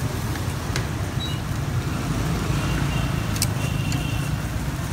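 Steady low rumble of motor traffic, with two short sharp clicks, one about a second in and one past three seconds in.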